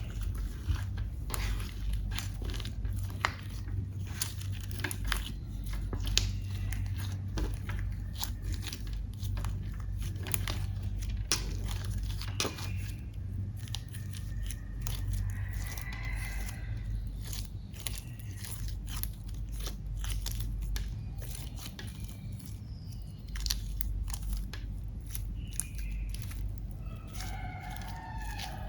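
Slime being kneaded and stretched by hand, with many small sharp clicks and pops throughout over a low steady hum.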